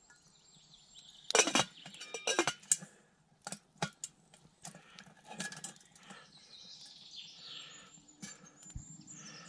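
Stainless steel Zebra billycan and its lid clinking as they are handled and set onto a Firebox stove. The loudest clinks come about a second and a half in, with several more through the first half.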